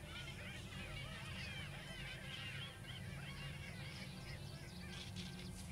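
A troop of monkeys chattering and squealing, with many short high calls overlapping.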